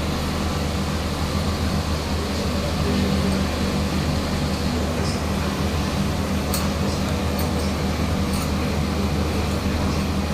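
LG window air conditioner running: a steady low hum with even fan-like noise over it, and a few faint ticks about two-thirds of the way through.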